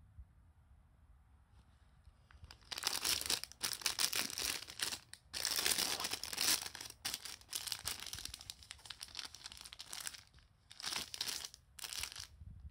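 Clear plastic film wrappers of packaged buns crinkling as they are picked up and moved around by hand, in irregular bursts starting a little under three seconds in and trailing off in two short bursts near the end.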